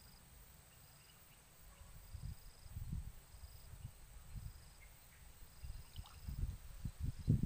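Faint insects chirping in short repeated bursts over a steady high hum, with irregular low rumbles of wind on the microphone that start about two seconds in and grow louder near the end.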